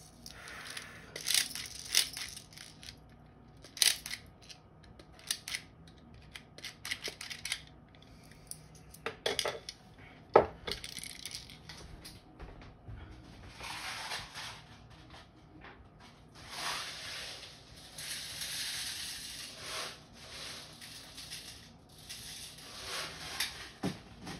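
Clicks and knocks of an airsoft gas blowback pistol and its magazine being handled, followed in the second half by several short hissing bursts, each lasting one to three seconds.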